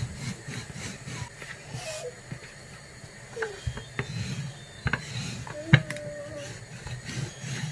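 Wooden rolling pin rolling out pizza dough on a silicone baking mat: a soft, uneven rubbing rumble with a few light knocks, the sharpest about six seconds in.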